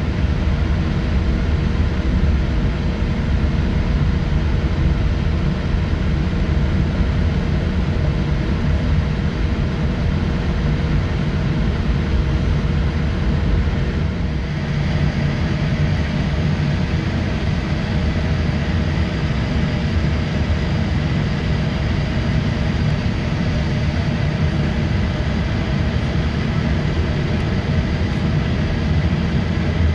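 Cabin noise inside a Boeing 787-8 during taxi: a steady low rumble from the Rolls-Royce Trent 1000 engines at low thrust, with a faint steady hum over it. There is a brief dip in level about halfway through.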